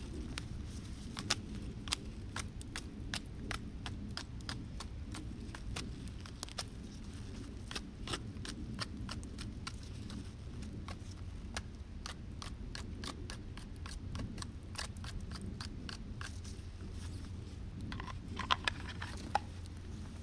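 Wood campfire crackling: irregular sharp pops over a low steady rumble, with a brief cluster of louder pops near the end.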